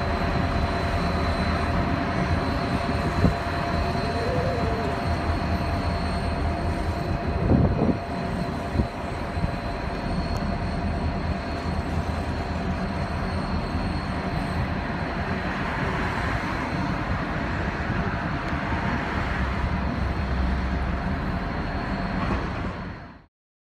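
G class diesel locomotives running slowly under load, a steady engine rumble with a few metallic clanks from the train, the loudest about seven and a half seconds in; the sound cuts off abruptly near the end.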